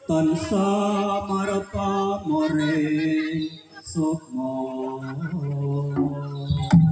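A voice singing a Javanese chant-like melody in long held notes, without accompaniment; it starts abruptly and runs in phrases with short breaks.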